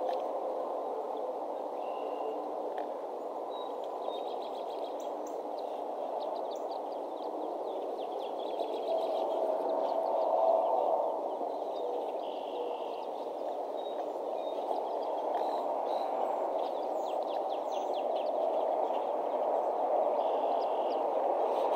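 Small songbirds chirping and trilling faintly and intermittently over a steady low rushing background noise.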